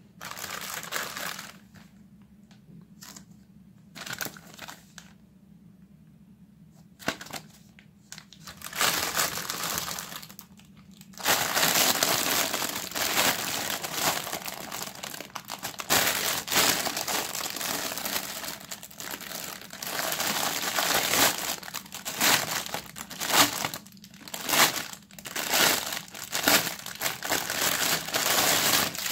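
Clear plastic packaging bag crinkling and rustling as it is handled and pulled off a toy dart blaster. Scattered rustles at first, then continuous from about a third of the way in.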